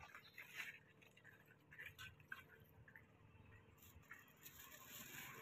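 Near silence, with a few faint clicks and light scrapes and a soft hiss beginning to swell near the end.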